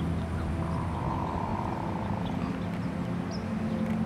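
Several drake hooded mergansers giving their low, rolling, frog-like courtship calls, overlapping one another during the head-throw display.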